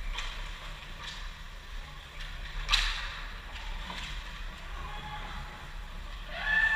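Ice hockey play in an indoor rink: a few sharp knocks of sticks and puck, the loudest a little before the middle, over a low steady arena rumble. A short shout from a player or the stands near the end.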